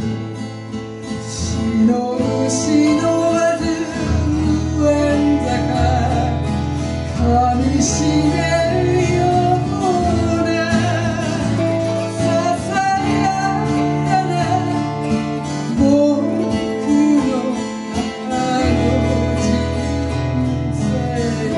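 Acoustic guitar and autoharp playing a slow Japanese folk song, with wordless singing drawn out over the chords.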